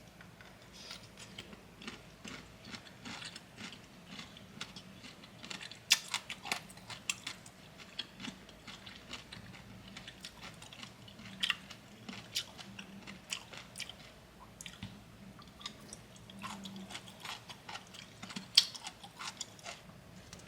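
Close-up eating sounds: crunchy chewing of bamboo shoot and green papaya salad, with many short, irregular crackles and a few louder crunches near the middle and toward the end.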